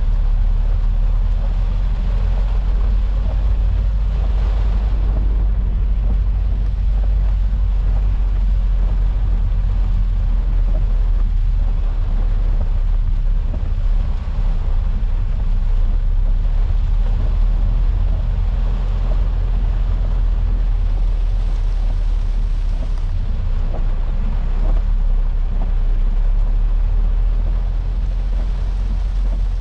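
Steady low rumble of a Peugeot 406 being driven through heavy rain, heard from inside the cabin, with an even hiss of rain and wet road noise over it.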